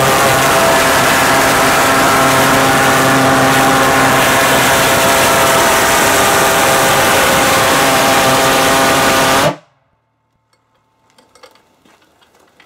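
Pulsejet engine running with a loud, steady buzz that cuts off suddenly about three-quarters of the way through. A few faint clicks follow.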